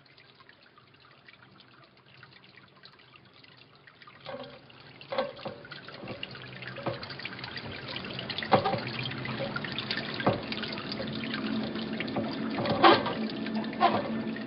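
Water trickling and dripping, with single drops splashing at irregular intervals. It fades up from near silence over the first four seconds or so and grows steadily louder.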